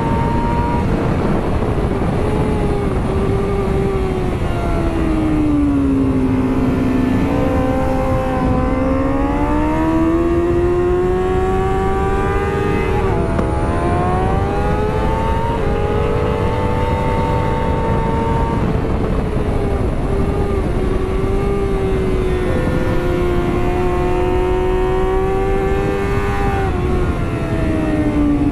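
A 2009 Kawasaki ZX-6R's inline-four engine running hard at high revs, heard from on the bike with heavy wind rush. The engine note sags as the rider slows for corners and climbs again under throttle, with a brief break from a gear change near the middle.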